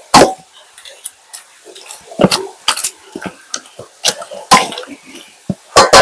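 Kitchen clatter: irregular knocks and clinks of utensils against pots and dishes, with some splashing of water.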